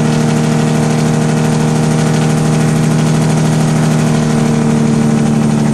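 Semi-truck diesel engine running at highway speed, heard inside the cab as a steady, even drone.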